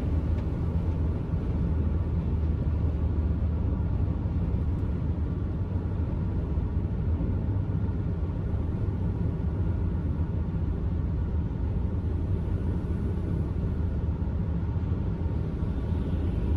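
Steady drone of a truck's diesel engine and tyre noise, heard inside the cab while cruising at highway speed, with an even low hum and no change in pace.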